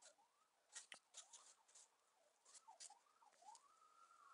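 Near silence, with faint soft crackles and clicks from solder melting onto the soldering iron at a copper-wire joint, and a faint tone gliding repeatedly up and down.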